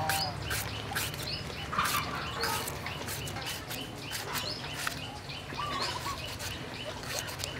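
Knife slicing thin pieces off a green mango into a steel bowl, a run of short crisp cutting clicks. Birds chirp and call now and then in the background.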